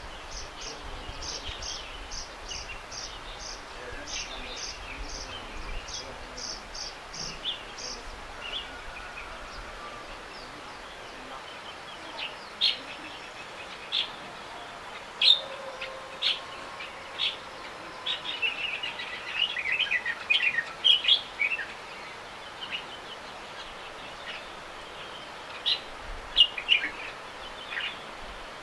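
Small songbirds chirping in foliage. A high, evenly paced series of short notes runs through the first eight seconds; later come scattered sharp chirps, with a busy flurry about twenty seconds in.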